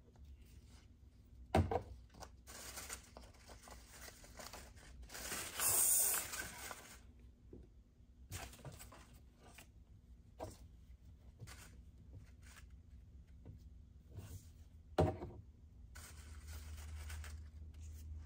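Construction paper rustling and being handled on a table, with a louder scraping rustle about six seconds in and two sharp knocks, one near the start and one about fifteen seconds in.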